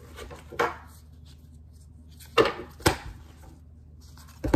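Tarot cards being handled and laid down on a wooden tabletop: a few sharp taps and slaps of card against wood, two of them close together in the middle.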